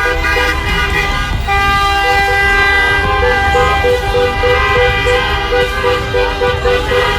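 Many car horns honking at once in celebration: long held blasts overlap, while one horn toots in a quick repeated rhythm of about three beeps a second from about a second and a half in.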